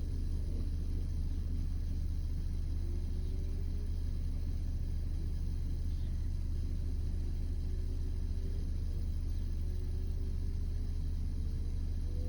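A vehicle driving, with a steady low rumble and a faint engine note that slowly rises in pitch a few times.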